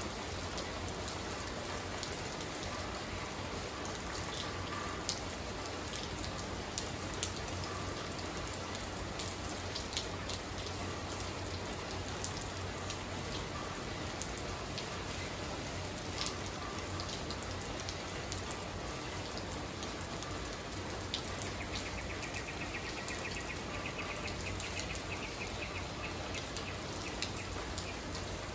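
Steady rain falling on a wet tiled floor and into puddles, with many close drops ticking sharply. About three quarters of the way through, a faint rapid pulsing sound joins in for several seconds.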